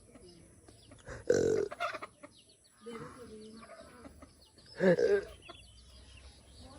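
Chickens clucking, with two louder calls about a second in and near five seconds, and faint short high peeps in between.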